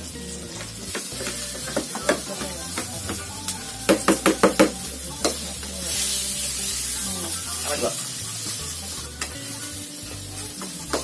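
Chillies and spice paste sizzling in hot oil in a metal wok, stir-fried with a metal spatula that scrapes and clacks against the pan. A quick run of scraping strokes comes about four seconds in, and the sizzle grows louder around six seconds in.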